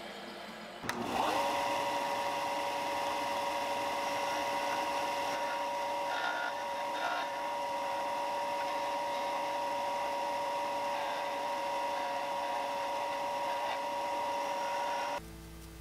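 Bench sander's electric motor spinning up with a rising whine about a second in, then running with a steady whine while a small fish-shaped lure blank is sanded against it. The sound cuts off suddenly near the end.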